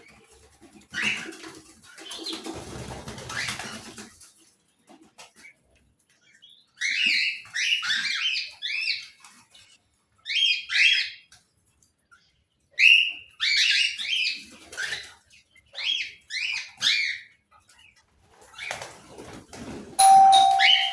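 Small pet parrots chirping in quick clusters of short, high calls, with a rustling noise in the first few seconds and a short steady tone near the end.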